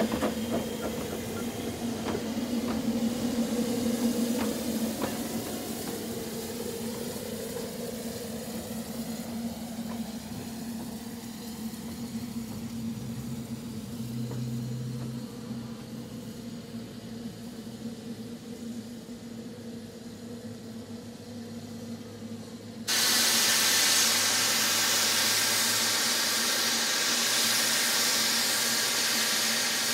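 Double Fairlie steam locomotive Merddin Emrys blowing off steam: a loud, steady hiss starts suddenly about three-quarters of the way through and keeps going. Before it there is a quieter low, steady hum with a few light clicks at first.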